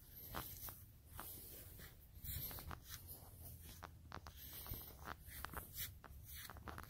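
Faint, irregular footsteps on dry lawn grass: a string of soft clicks.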